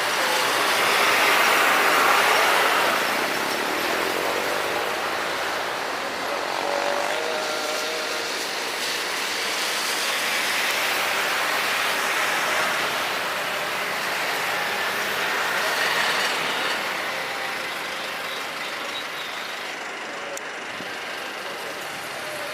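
Airbus A321 jet engines at takeoff thrust: a steady rushing noise with faint gliding tones in it, easing off slightly near the end.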